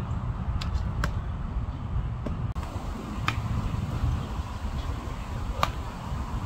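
Sharp knocks of baseballs being hit and caught during infield practice, three clear ones a little over two seconds apart, over a steady low rumble.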